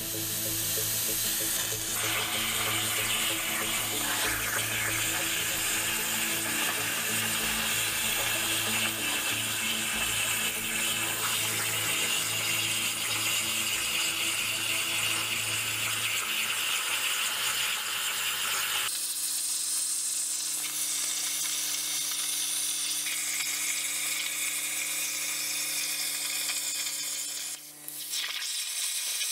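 Razorcut 45CNC plasma cutter's machine torch on a CNC plasma table cutting steel plate: a loud, steady hiss of the arc and air with a constant hum underneath. The hum drops away about two-thirds through while the hiss goes on, and the hiss dips briefly near the end.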